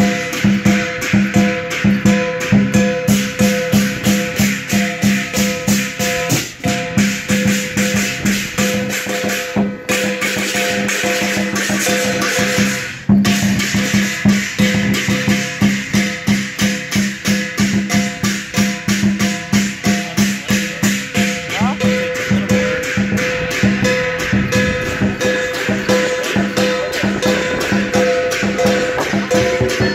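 Lion dance percussion band playing a steady, fast beat on a Chinese drum, clashing cymbals and gong.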